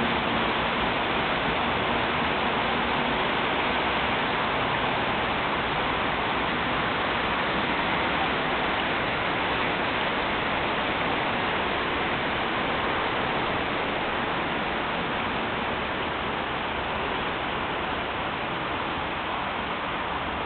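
A steady, even hiss with no distinct events, easing slightly near the end.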